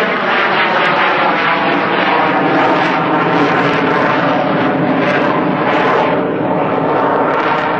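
Fixed-wing aircraft flying past low and loud, its engine a steady multi-toned drone whose pitch falls slightly as it passes.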